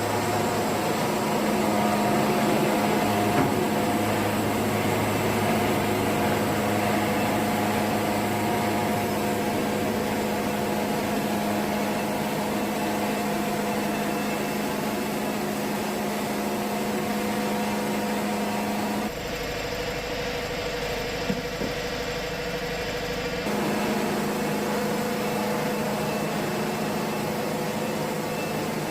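Wood-Mizer band sawmill running steadily, its engine and band blade sawing a yellow pine log. The tone shifts abruptly for a few seconds about two-thirds of the way through, then settles back.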